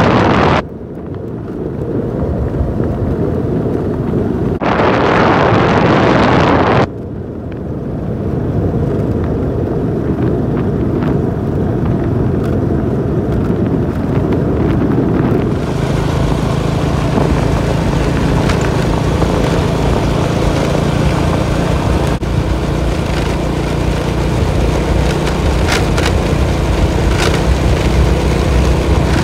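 Motorbike engine running steadily while riding, with loud buffeting of wind on the microphone at the start and again about five seconds in. From about halfway the engine's drone holds a steady pitch.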